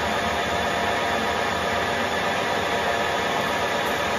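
Harrison M400 metal lathe running steadily during thread-cutting passes on a long steel bar, a constant mechanical whir with a faint steady hum.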